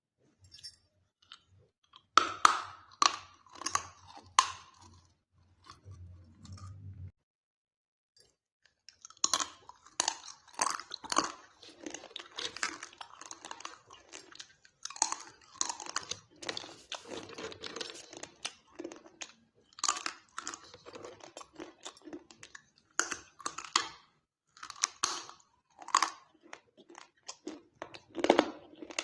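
Dry clay and multani mitti (Fuller's earth) being crunched: a run of crisp, irregular crunches, with a pause of about two seconds a quarter of the way in.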